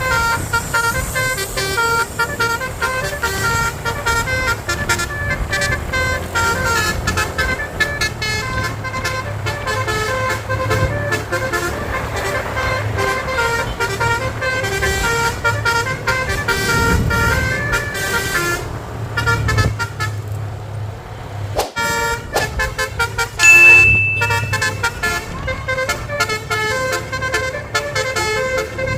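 Basuri telolet multi-tone bus horn playing fast melodic runs of short notes that jump in pitch, over the bus's engine rumble. The notes pause for a few seconds about two-thirds of the way through, then a single loud shrill high tone sounds briefly before the runs start again.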